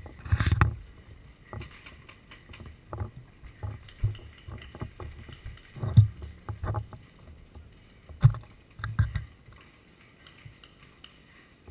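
Irregular low thumps and knocks of a paintball player moving on foot with his marker, with a few sharper knocks about six, eight and nine seconds in.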